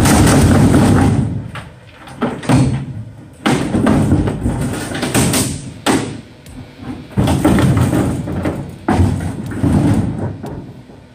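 Repeated loud thuds and scraping from the aluminium hull of a 1974 Smoker Craft boat as it is taken apart. Each burst starts sharply and dies away over a second or two, about six in all.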